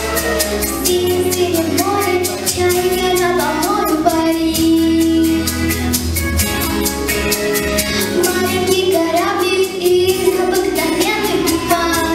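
A young girl singing a children's song into a microphone over an instrumental accompaniment with a steady beat.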